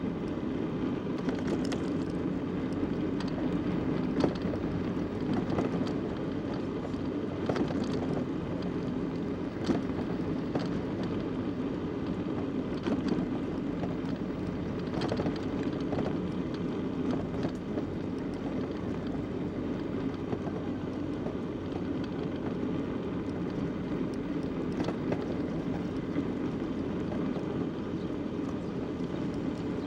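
Steady rumble of a bicycle rolling along a road, with wind on the microphone, and a few sharp clicks and rattles scattered through.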